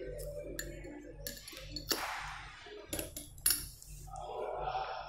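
Laboratory glassware clinking as test tubes and glass funnels in water-filled beakers are handled: a handful of sharp glass clinks and knocks, the loudest about three and a half seconds in, with a brief rushing noise about two seconds in.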